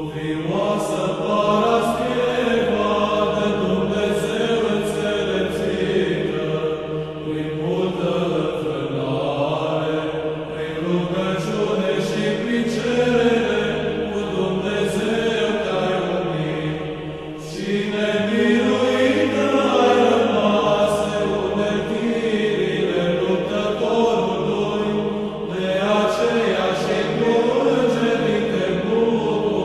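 Orthodox church choir chanting a slow melody, sustained long notes continuing without pause, with a short dip just before the middle.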